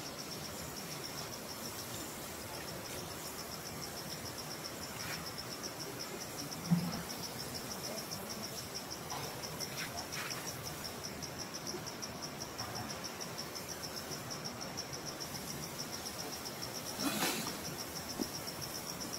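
Insects trilling steadily in a fast, even pulsing chirp, which fades briefly about two seconds in. A dull low thump comes about seven seconds in, and a brief sharp sound near the end.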